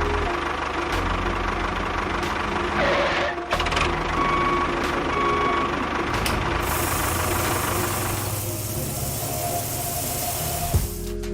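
Small motor of a DIY miniature construction vehicle running, a steady mechanical whir with a few clicks.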